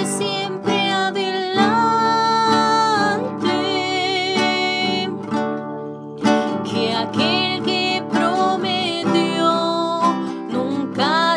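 A woman singing with long, held notes while strumming a nylon-string classical guitar.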